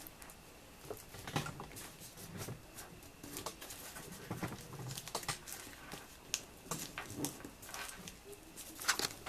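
Origami paper being folded and creased by hand: faint, irregular crinkles and light ticks as the flaps are folded to the centre crease and pressed flat.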